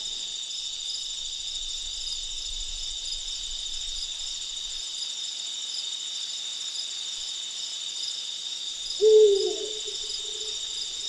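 Night ambience: a steady chorus of night insects chirring, with a single owl hoot about nine seconds in that swells and fades over a second or so and is the loudest sound.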